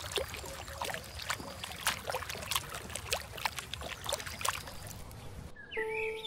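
A lioness lapping water from a pool: sharp, wet laps about twice a second. Near the end this cuts off and birdsong with music takes over.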